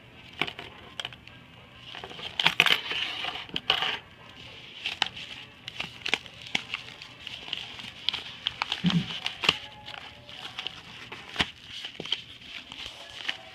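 Crinkling and crackling of a trading-card pack's wrapper being handled and torn open, with many sharp clicks. The densest, loudest burst of crinkling comes about two to four seconds in.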